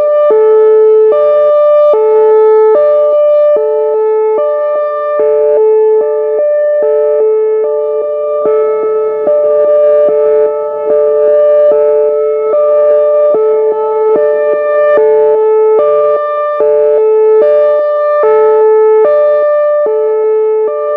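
Whelen Vortex R4 electronic outdoor warning siren sounding its hi-lo tone, loud and steady, switching back and forth between a low and a high pitch just under once a second.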